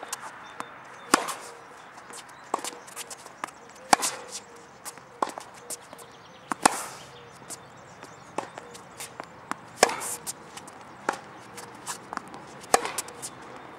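Tennis balls struck by rackets in a baseline rally: a sharp, loud strike about every three seconds, with fainter hits and ball bounces in between.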